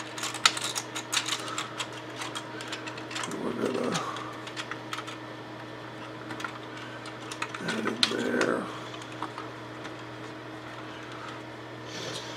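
Light clicks and taps of small plastic model-kit parts being handled and pressed into place on a plastic tank hull, quick and thick in the first few seconds, then sparser.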